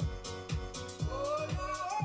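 Background pop music with a steady drum beat, about two beats a second; a gliding melody line comes in about a second in.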